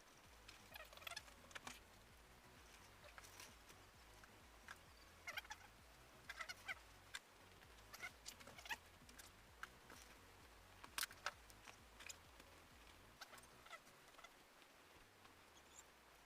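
Faint, scattered clicks and short scrapes of small bolts and a metal plate being handled and fitted by hand, with some brief squeaks.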